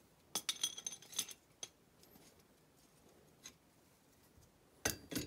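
Light metallic clicks and clinks as a steel shaft is fitted into and moved in the splined hub of a Fiat 126 clutch disc by hand. They come in a quick cluster in the first second, a few single ticks after that, and a louder clatter near the end.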